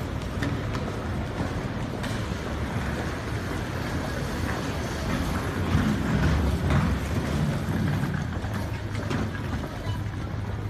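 Wheeled suitcases rolling over a hard floor, a steady rumble with light clicks that swells a little about halfway through.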